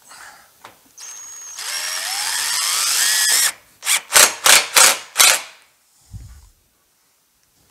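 Cordless drill driving a screw through corrugated metal roofing: a whine that climbs in pitch for about two seconds, then five short trigger bursts, followed by a dull thump.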